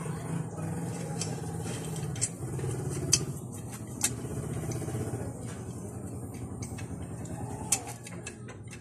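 Sharp metal clicks and clinks as the aluminium cylinder block of a Yamaha Mio Soul i 125 scooter engine is slid down its studs over a new piston, several clicks spread a second or so apart, over a steady low hum.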